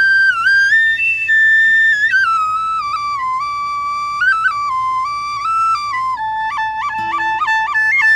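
Tiny Native American flute playing a slow, high melody of held and gliding notes, then breaking into quick flicks back and forth between two notes over the last two seconds.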